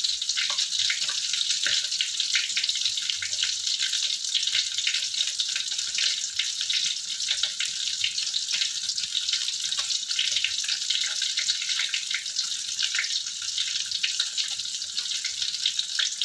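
Red snapper heads shallow-frying in hot oil in a wok: a steady sizzle with many small crackling pops.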